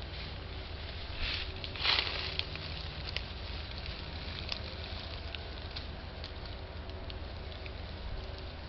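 Low rumble with faint crackling and scattered small clicks, and a brief louder rustle about two seconds in.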